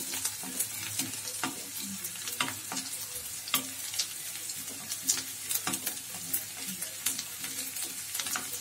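Chopped onion sizzling in hot oil in a kadhai, browning, while a wooden spatula stirs it, scraping and knocking against the pan at irregular moments.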